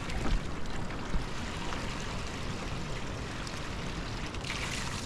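Steady rushing noise with a few low thumps in the first second; the hiss grows brighter near the end.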